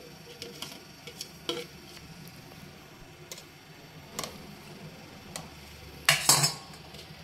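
Metal spoon in a ceramic bowl of wet batter, giving scattered light clinks and scrapes as thick mango batter is poured in and stirred, with a louder scrape or knock near the end.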